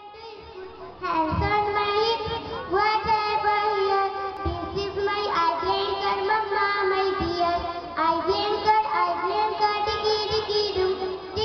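Children's voices singing a song with musical accompaniment. It starts softly and grows louder about a second in, with a few low thumps along the way.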